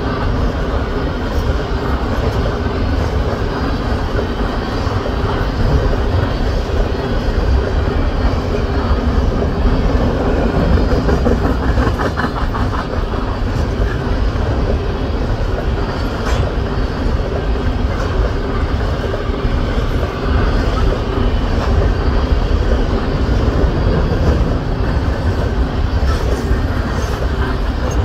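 Freight train of three-bay covered hopper cars rolling past: a steady, loud rumble of steel wheels on rail, with a few sharp clacks over the rail joints.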